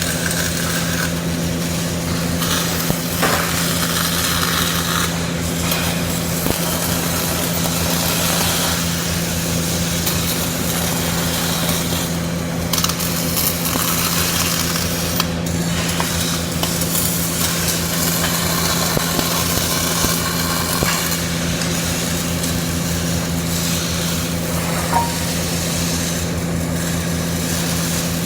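CO2 (MIG) welding arc crackling steadily over a constant low machine hum, with a few brief breaks in the crackle.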